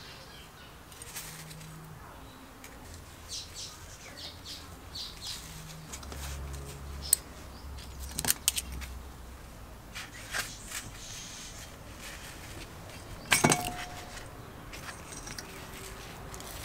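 Small metal engine parts clinking and rattling as they are handled and worked loose from an old Briggs & Stratton small engine during disassembly. The clicks are light and scattered, with sharper knocks about seven, eight and thirteen seconds in.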